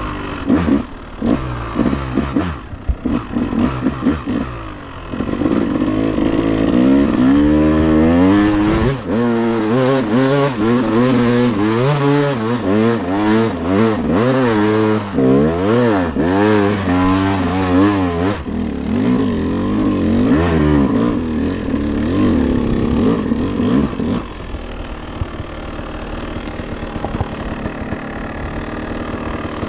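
Dirt bike engine being ridden hard, its pitch rising and falling again and again with the throttle. Near the end it settles to a quieter, steadier run.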